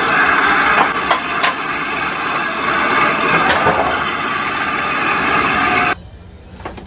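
A vehicle's engine running loudly and steadily, with a few sharp clicks, which cuts off abruptly about six seconds in.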